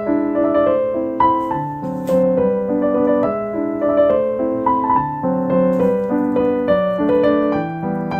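Background piano music: a steady run of single notes over lower chords.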